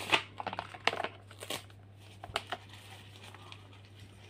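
Clear plastic packaging crinkling and crackling as it is handled. There is a quick run of crackles in the first second and a half and two more about two and a half seconds in, then just a faint low hum.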